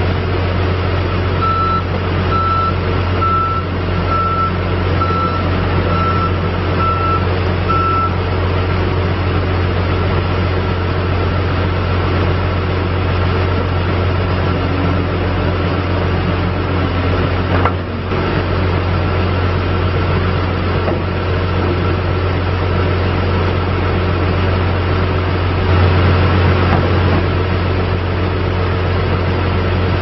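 John Deere 310J backhoe loader's diesel engine running steadily, its backup alarm beeping about eight times, roughly once a second, during the first several seconds as it reverses. A single sharp knock a little past halfway, and the engine gets louder for a few seconds near the end.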